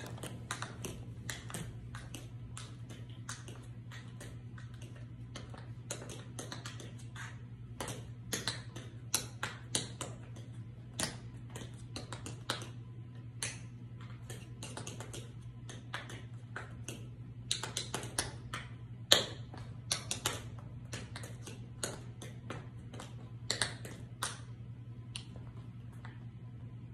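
Patent leather tap shoes striking a hard floor in unaccompanied tap dancing: quick, irregular runs of sharp clicks, the loudest strike a little after two-thirds through, thinning out near the end. A steady low hum runs underneath.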